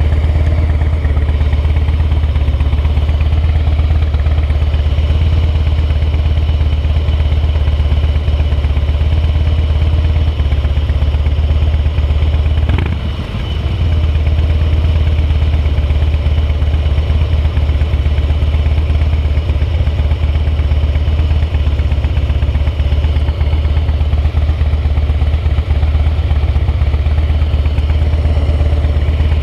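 Harley-Davidson V-twin motorcycle engine idling steadily, just started, with a brief dip in the sound about halfway through.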